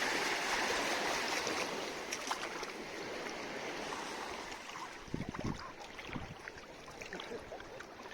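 Sea water sloshing and splashing close to the microphone as someone swims, louder for the first couple of seconds and then quieter, with small droplet splashes and a low bump a little after five seconds in.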